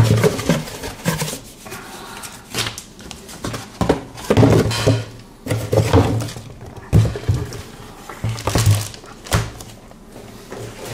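Power supply packaging and contents being handled: a run of thunks, knocks and rustles from cardboard and plastic being moved about.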